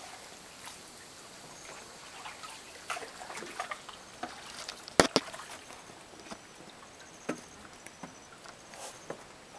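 Quiet water sounds around a kayak in a cave: light trickling and lapping with scattered small knocks and ticks, and two sharp clicks close together about five seconds in.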